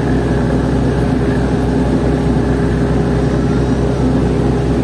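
A ferry boat's engine running steadily underway, a constant low drone with an even rushing noise over it.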